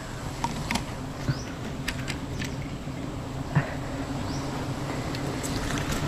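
A swarm of wild honey bees buzzing steadily around their open hanging comb as it is smoked, with a few short clicks and brief high chirps over the hum.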